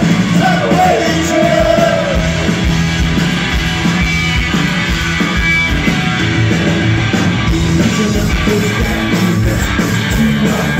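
Live punk rock band playing: distorted electric guitars, bass and drums, with the lead vocal singing a line in the first couple of seconds and the band carrying on without vocals after.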